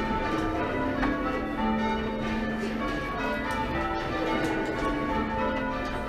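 A ring of six church bells, Whitechapel-cast by Mears, with a tenor of about 8½ cwt in A-flat, being rung full-circle in English change-ringing style. The bells strike one after another in a steady, unbroken succession, each note ringing on under the next.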